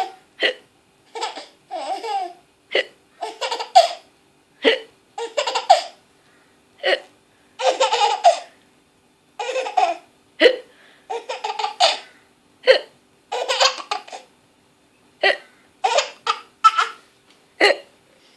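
Baby laughing in bursts, with a short hiccup about every two seconds.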